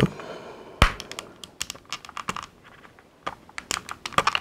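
Hard plastic parts of a Hasbro Tatooine Skiff toy clicking and tapping as they are handled and pressed together. There is one sharp click about a second in, then runs of small, quick clicks.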